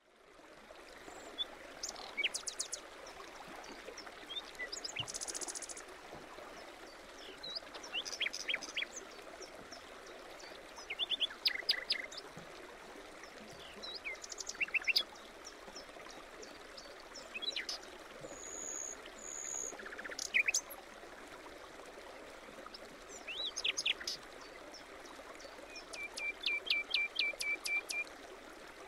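Songbirds singing short chirping phrases every two to three seconds over a steady background rush, ending with a rapid even trill of repeated notes.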